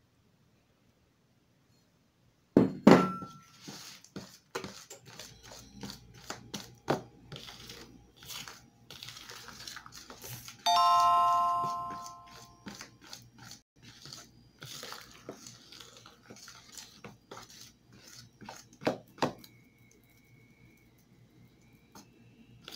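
Metal spoon clinking and scraping against a mixing bowl as eggs and milk are beaten into batter: many quick knocks and scrapes, with a loud knock about three seconds in. About ten seconds in, a chime-like ringing tone sounds for about two seconds and fades out.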